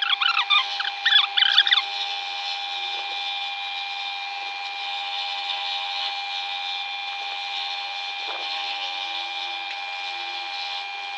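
Scroll saw running steadily at a turned-down speed, a continuous even hum. A few short squeaks come in the first two seconds.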